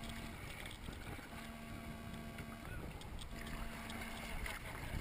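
Water sloshing and lapping against an inflatable inner tube drifting on a lazy river, heard close to the water's surface as an even, continuous wash.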